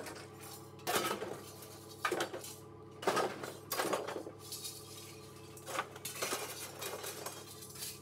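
Rusted sheet-metal scrap cut from a Willys Jeep CJ3B body being thrown into a pickup truck bed, clanking and rattling in several separate crashes about a second apart, each ringing briefly.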